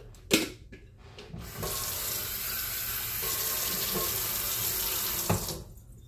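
Kitchen sink faucet running, water pouring steadily into the sink for about four seconds before being shut off. A sharp knock comes just before the water starts.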